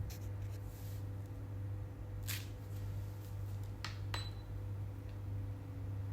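Humidifier running with a steady low hum, with three short clicks and taps of handling between about two and four seconds in.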